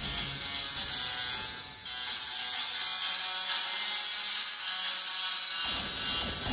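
Small desktop Tesla coil's spark discharge buzzing and crackling harshly as its arc strikes a waffle cone, swelling and falling in a pulsing rhythm. It drops out briefly just before the two-second mark and returns louder, with a deeper buzz coming in near the end.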